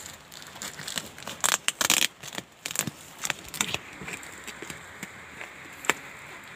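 Packing tape and cardboard of a courier box being cut and torn open: a run of crackling, tearing bursts and clicks over the first four seconds, then one sharp click near six seconds.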